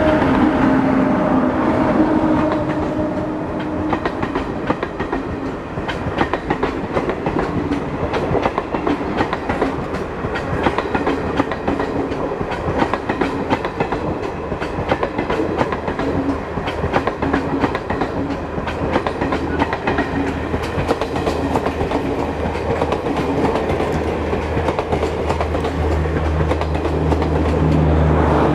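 A WAG9 electric locomotive hauling the Garib Rath Express passes close by. A steady hum from the locomotive fades over the first few seconds and gives way to a long, rapid clickety-clack of coach wheels over the rail joints. A low steady rumble grows near the end as the last coaches go by.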